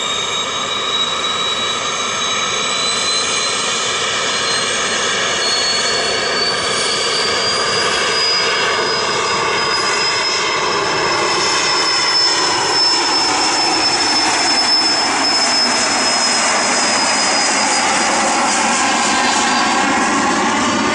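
The twin Pratt & Whitney Canada PW615F turbofans of a Cessna Citation Mustang (Citation 510) jet run with a high whine. The whine rises in pitch over the first several seconds and then holds. A deeper rushing roar builds through the second half as the jet accelerates down the runway on its takeoff roll.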